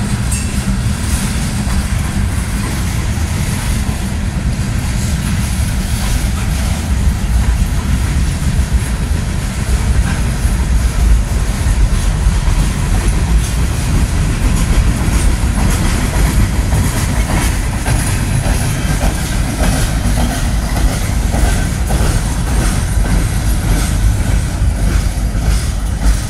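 Freight cars rolling past: a steady rumble of steel wheels on the rails, with a clickety-clack of wheels over the rail joints. The end of the train passes near the end.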